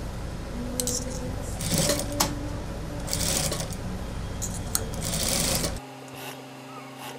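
Industrial lockstitch sewing machine running in short bursts as it stitches tape onto mink fur, with a hiss of the fur and fabric being fed through. It stops abruptly near the end.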